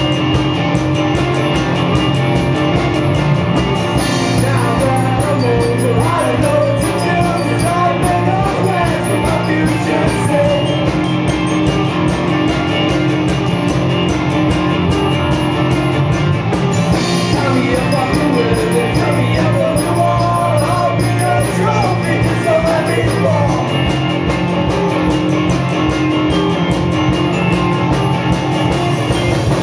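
A live band plays rock music, with guitar, drums and a singer, loud and unbroken.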